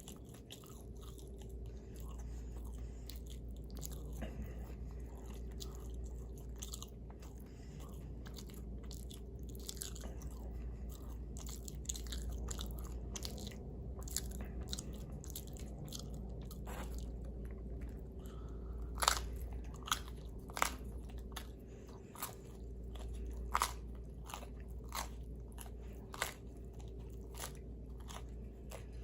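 Close-miked chewing and biting of pizza, with crunching crust and wet mouth clicks throughout; several sharper crunching bites in the second half.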